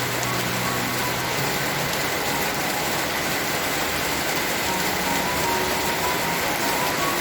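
Steady rain falling, an even hiss, with faint background music notes over it.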